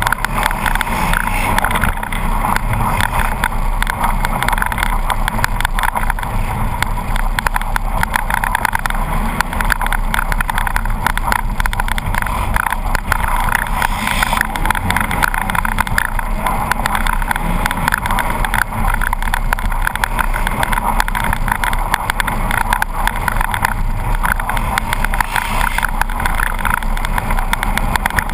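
Polaris RZR 800 side-by-side's twin-cylinder engine running steadily under way, heard from onboard. Over it runs a dense, continuous clatter of rattles and jolts.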